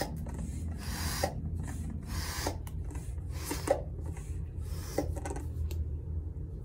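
Hand bike pump being worked up and down, each stroke a rasping hiss of air and sliding piston, about one stroke a second. The strokes stop near the end.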